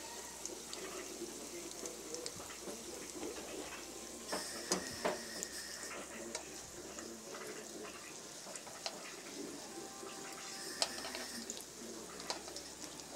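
Hot oil sizzling and crackling steadily as strips of food shallow-fry in a pan, with a few sharp clicks of a metal utensil against the pan.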